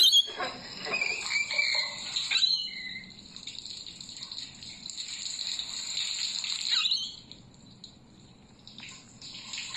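Rainbow lorikeet chattering in high-pitched calls, with quick falling squeals about half a second in, at around two and a half seconds and again around seven seconds, then a short lull before it starts up again near the end.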